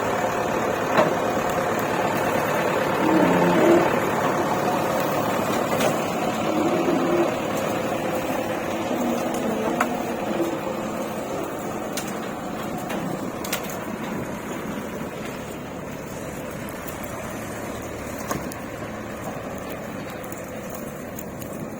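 Vehicle engine running steadily and slowly growing quieter, with scattered clicks and knocks.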